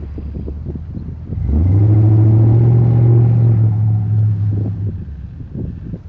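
Duramax diesel engine in a lifted Chevrolet Silverado plow truck, running low, then revving up about one and a half seconds in and holding a steady, loud pull for about three seconds before easing back off.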